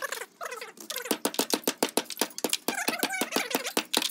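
Rapid clanks and knocks of a hatchet chopping at a perforated metal strip from an air-conditioning coil, laid on a wooden stump. The blows come several a second, as if sped up, with high wavering tones between them.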